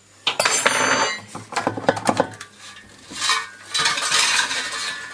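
Metal serving tongs clinking and scraping against an air fryer's nonstick basket and a plate as fries are moved onto the plate, in repeated bursts of clatter.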